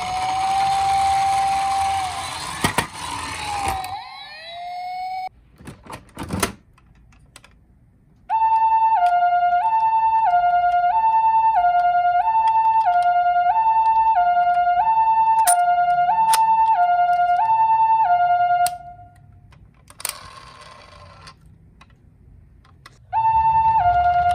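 Toy ambulance's electronic two-tone hi-lo siren, the Japanese "pee-po" pattern, stepping evenly between a high and a low note about once every 1.3 seconds. It sounds for about ten seconds in the middle and starts again near the end. Before it comes a short noisy stretch with a steady tone and a few clicks.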